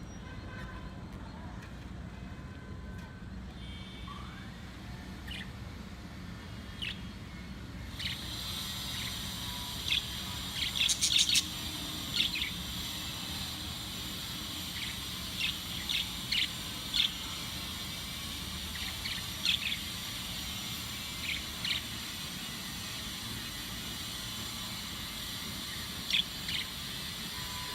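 Pet budgerigars chirping in their cage: short, high chirps, scattered at first and more frequent after the first several seconds, with a quick cluster a little before halfway.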